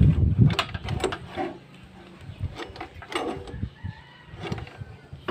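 Scattered light metal clicks and knocks as the exposed crankshaft and timing gears of an opened small single-cylinder gasoline engine are handled. A low rumble dies away in the first half-second.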